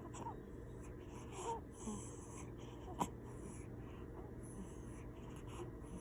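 Newborn baby snoring in short, irregular noisy breaths with small squeaks, and one sharp click about three seconds in.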